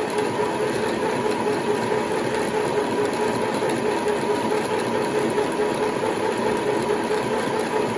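Aldi Midi sewing machine's motor running at full speed to wind thread onto a bobbin, a steady even whir with a constant pitch.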